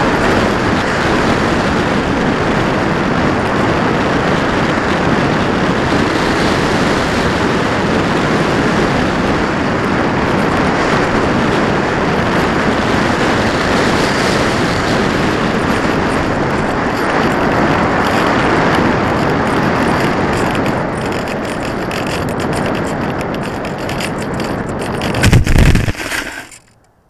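Steady rush of airflow over the onboard camera of a Taboo XL unpowered discus-launch glider in gliding flight. Near the end a loud thump as the glider lands on grass, and the rushing stops.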